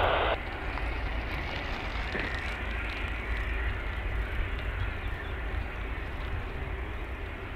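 Airbus A330-343E's Rolls-Royce Trent 700 engines at taxi thrust: a steady jet hum with a low rumble underneath.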